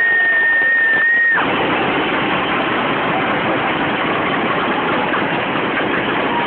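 Arena crowd noise, a dense steady roar of many voices. It follows a long, high, steady tone that falls slightly in pitch and cuts off about a second and a half in.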